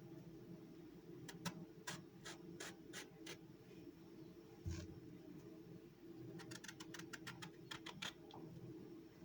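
Light tapping and scratching clicks in two short runs of quick ticks, with a single soft thump between them, over a faint steady hum.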